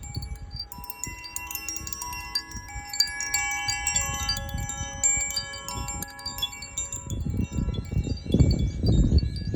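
Zaphir Sunray chime, a tuned wind chime, ringing: many clear overlapping tones start about a second in and die away by about six seconds. A gusty low rumble grows under it near the end and is the loudest sound there.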